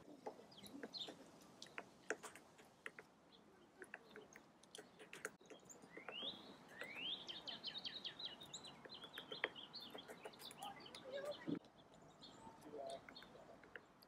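Hairy woodpecker calling, faintly: a quick run of short, high notes lasting about three seconds around the middle. A few faint knocks are scattered through it.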